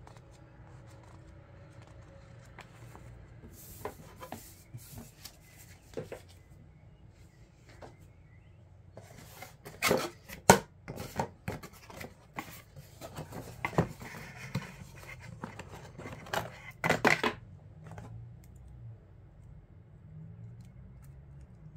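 Packaging and parts being handled by hand, with scraping, rustling and sharp clicks coming in irregular bursts. The loudest bursts are about ten seconds in and again about seventeen seconds in.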